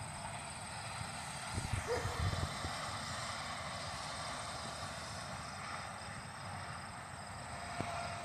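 Distant jet airliner engine noise, a steady rushing sound with a thin high whine, and wind buffeting the microphone about two seconds in.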